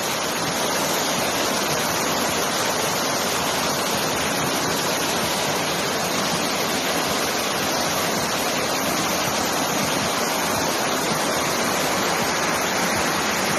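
Swollen, muddy floodwater rushing steadily down a rocky waterfall cascade.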